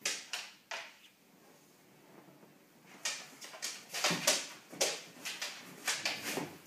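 Two Rhodesian Ridgebacks scuffling in play: a quick run of short knocks and scrabbles of claws and paws on a wooden floor and against furniture, thickening from about three seconds in.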